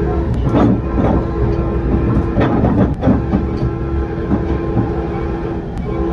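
Moving commuter train heard from inside a passenger coach: a steady rumble with several clanks of the wheels over rail joints in the first three seconds. Under it the F59PH locomotive's Nathan K5LA horn holds a steady chord, breaking off briefly near the end and sounding again.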